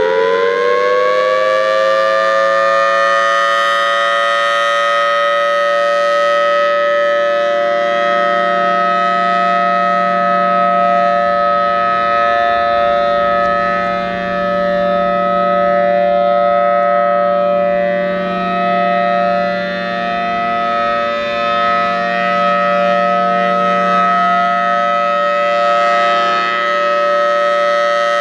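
Federal Signal Thunderbolt 1003 outdoor warning siren sounding its steady Alert signal. It finishes winding up to pitch in the first couple of seconds, then holds a loud, steady two-note chord, its loudness swelling and dipping a little.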